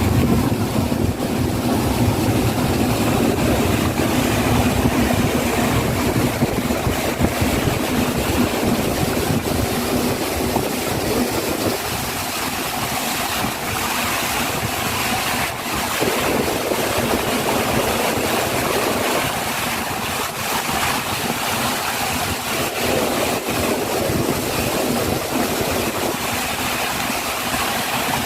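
Motorboat engine running under way, with water rushing past the hull and wind on the microphone; the lower part of the sound thins out and returns a few times.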